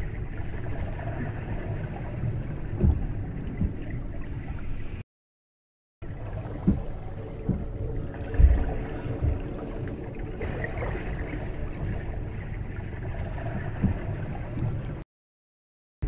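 Water gurgling over a steady low rumble, with a few soft thumps. It cuts out to complete silence twice, for about a second each time: about five seconds in and again near the end.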